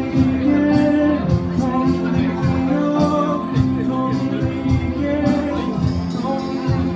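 Live band music led by an electronic organ, with held chords, a moving bass line and drums keeping a steady beat.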